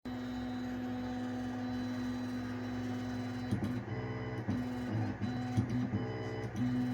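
Flsun QQ-S Pro delta 3D printer's stepper motors whining at one steady pitch for about three and a half seconds, then switching to short moves whose pitch jumps up and down with brief stops and small clicks between them.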